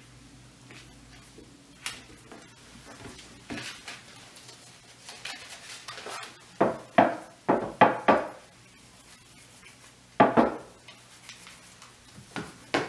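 Dry corn husks rustling and crackling as they are handled, with a quick run of five sharp crinkles about two-thirds of the way through and a couple more near the end.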